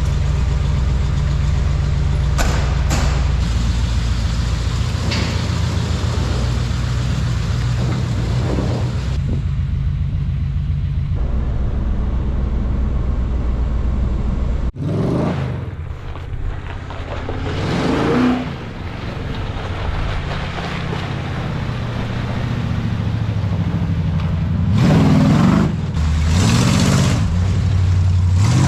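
Truck engine running steadily, then, after an abrupt change about halfway through, revving up and down several times.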